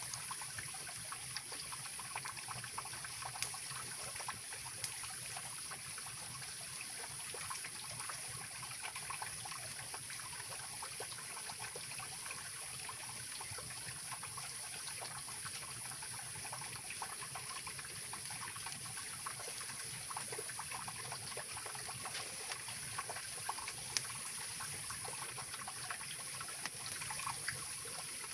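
Mountain river rushing and trickling steadily, with a few sharp crackles from a wood campfire.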